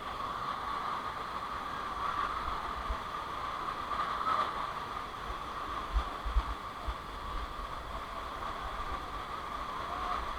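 Steady rush of a monsoon waterfall and stream, with wind buffeting the microphone in low thumps about halfway through.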